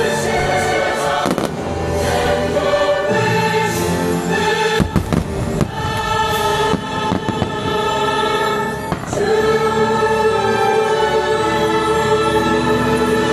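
Fireworks show soundtrack of choir and orchestra with long held chords, with fireworks bursting repeatedly over it, most of the bursts in the first half.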